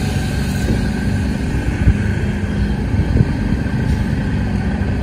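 Steady low rumble of a running engine, with a couple of dull knocks about two and three seconds in.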